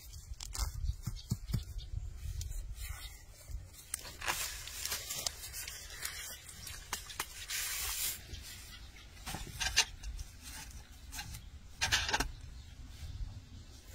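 Hands handling food and kitchen things: rubbing and rustling, with several short hissing swishes.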